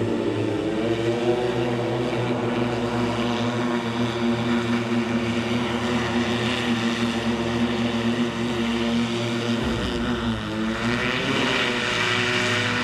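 Opener BlackFly electric eVTOL's eight electric motors and propellers running with a steady, many-toned drone as it flies low. About ten seconds in, the pitch bends down and back up as it comes down onto the grass, and a hiss rises near the end.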